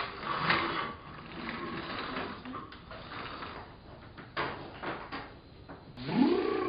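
Littlest Pet Shop plastic toy figures and playset pieces handled and set down on a table, with scattered light clicks and knocks. About six seconds in, a voice-like call starts, rising in pitch.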